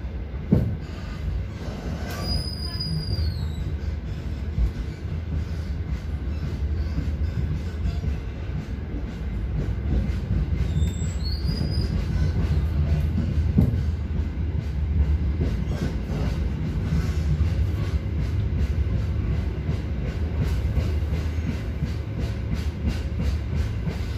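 Passenger train running on rails, heard from inside the coach as it gathers speed: a steady low rumble of wheels and running gear, with two brief high-pitched wheel squeals, one about two seconds in and one about ten seconds in. Rail clicks come more and more often toward the end.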